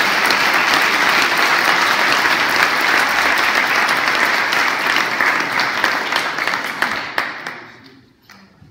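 Audience applauding, a dense, steady clapping that dies away near the end.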